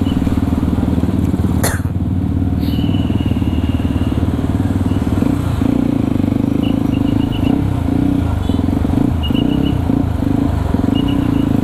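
Yamaha WR155R's single-cylinder engine running steadily at low road speed, with small throttle changes, heard from the rider's position on the bike.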